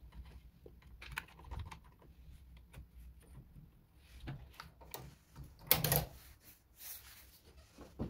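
Scattered light clicks and rattles of a Brother KH-260 knitting machine's carriage being handled while the yarn is pulled out of its yarn feeder and the carriage is lifted off the needle bed, with one louder knock about six seconds in.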